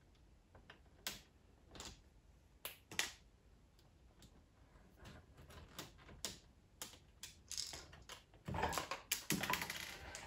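Plastic Technic-style bricks and pins of a model truck chassis clicking and clattering as it is handled: scattered sharp clicks, then a denser burst of rattling near the end.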